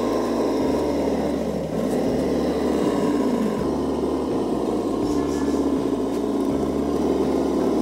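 Tamiya Globe Liner RC truck running steadily with an engine-like drone as it crawls along.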